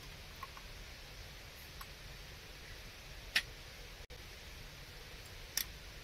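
Small objects being handled at a folding camp table: a few faint ticks, then two sharp taps about two seconds apart, over a steady low hiss.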